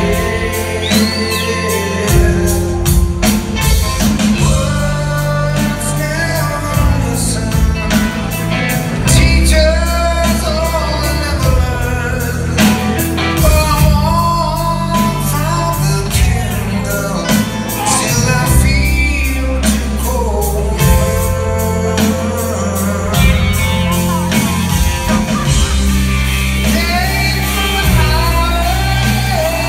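Live rock band playing a slow song, with electric guitars, bass and drums and a male lead vocal, heard from the audience through a phone's microphone with the reverberation of a large hall.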